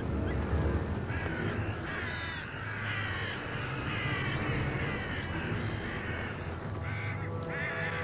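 A flock of hooded crows cawing harshly, many calls overlapping, starting about a second in and crowding thickest in the middle, over a low rumble.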